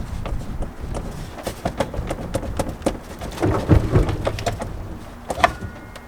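Rotten plywood boat floor being pried and torn out: irregular cracking and splintering of wood with knocks and thumps, loudest about halfway through and with one sharp knock near the end.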